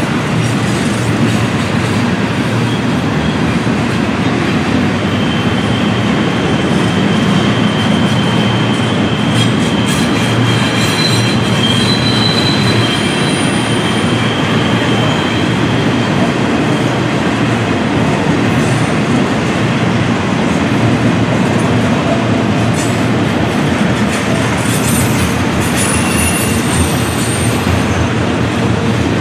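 Double-stack intermodal freight train rolling by: a loud, steady rumble of wheels on rail and cars passing. Thin high-pitched wheel squeals come and go over it, most steadily from about five to fifteen seconds in and again briefly near the end, the flanges grinding against the rail on the sharp curve.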